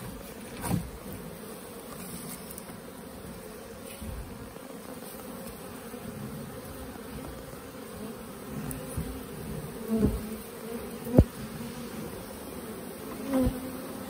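A honeybee swarm buzzing steadily as the cluster is disturbed. A few knocks from the firewood being handled cut through it, the sharpest about eleven seconds in.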